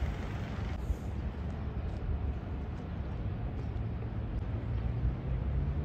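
Steady low rumble of outdoor ambience, with a low hum that comes up for a couple of seconds past the middle.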